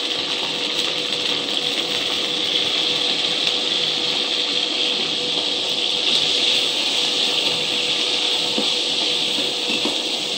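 Bitter gourd slices frying in hot oil in a nonstick pan: a steady sizzle, with the scrape and clatter of a metal ladle stirring them. A steady hum runs underneath.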